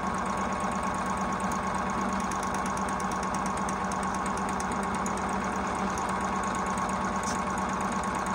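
Juki HZL-009 computerized sewing machine running steadily while it sews an automatic buttonhole with its buttonhole foot: an even motor hum with the rapid rhythm of the needle stitching.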